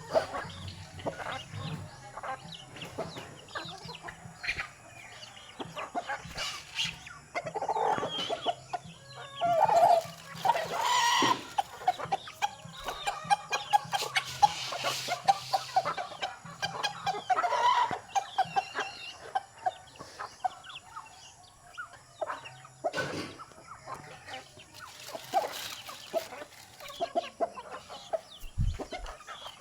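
A flock of chickens calling and clucking while being fed, with a louder call about ten seconds in and many short clicks and knocks throughout.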